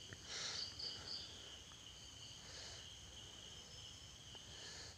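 Faint, steady, high-pitched trilling of insects in the background, with a few soft clicks.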